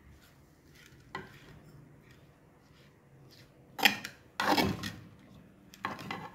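A metal spoon stirring shredded raw papaya in a clay pot. Quiet mixing with a light knock about a second in, then three louder scrapes of the spoon against the pot, the loudest around four seconds in.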